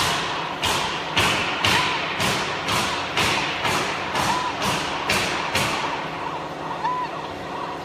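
A run of about a dozen sharp knocks, roughly two a second, each with a brief hissing tail, stopping about six seconds in, over a steady low hum. A short faint tone sounds every two to three seconds.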